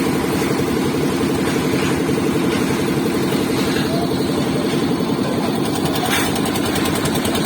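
An engine running steadily at a constant speed, with a fast, even firing beat.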